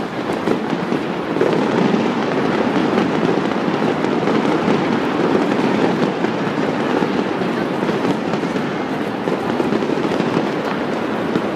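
Fireworks crackling and popping in a dense, continuous stream, getting louder about a second and a half in.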